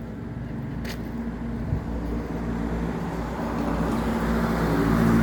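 A motor vehicle's engine running steadily and growing louder, as if drawing nearer.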